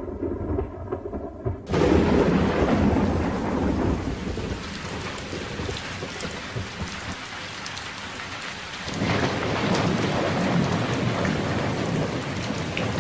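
Heavy rain mixed with hail, a dense steady hiss of hailstones and drops pelting the ground and roofs. It starts suddenly about two seconds in and gets louder again about nine seconds in.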